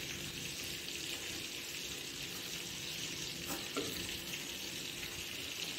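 Steady sizzling hiss of marinated chicken pieces cooking directly over a gas burner flame on a wire grill stand. Two faint light clicks come about three and a half seconds in.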